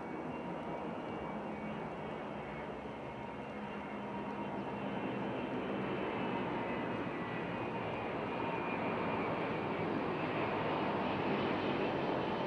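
Airbus A380-861's four Engine Alliance GP7200 turbofans on final approach with gear down: a broad jet rush with a thin steady whine over it, growing steadily louder as the aircraft comes overhead.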